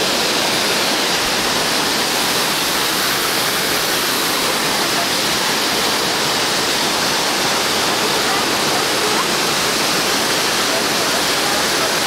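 A waterfall with about 100 metres of free fall, heard from close to its foot: a steady, dense rush of falling water crashing onto rocks, unbroken throughout.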